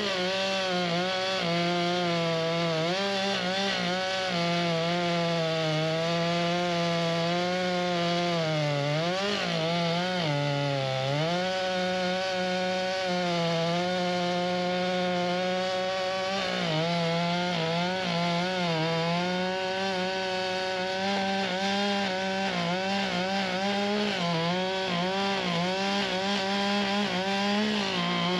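Two-stroke chainsaw running at full throttle while cutting through wood. Its pitch dips briefly a few times as the chain is loaded in the cut, then recovers.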